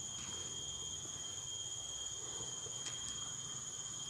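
Steady high-pitched whine with fainter, higher overtones, holding one unchanging pitch over a faint low background hum, with a few faint ticks.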